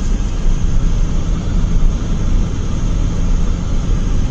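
Steady road and engine noise inside a moving car's cabin, a low rumble with no sharp events.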